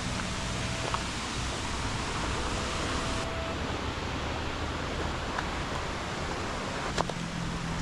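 A steady, even rushing noise, with a few faint clicks and a low hum coming in near the end.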